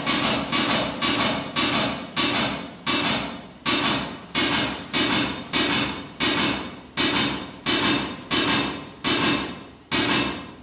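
Air-driven high-pressure water pump of a hydrostatic hose test unit stroking, each stroke a sharp puff of exhaust air that dies away. The strokes slow steadily, from about two a second to about one every 0.7 s, as the pressure in the hose builds toward the test pressure.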